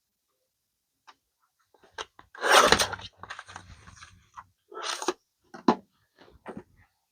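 Paper and craft materials handled on a tabletop: a short, loud rustle about two and a half seconds in, then scattered light clicks and knocks with another brief rustle midway.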